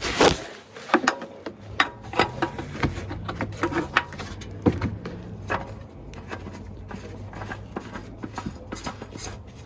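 Irregular light clicks, knocks and rubbing from hands handling the new oil filter and its fittings as it is put in place. The knocks are frequent in the first half and fainter and sparser after.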